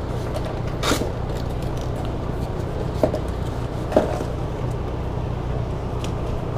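Steady low background hum, with a few brief clicks and rustles as packaging and the phone holder's parts are handled: about a second in, at three seconds and at four seconds.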